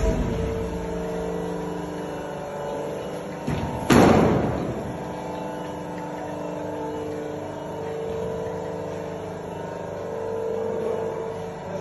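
Steady hum of metal-workshop machinery, with a sharp loud bang about four seconds in and a smaller knock just before it.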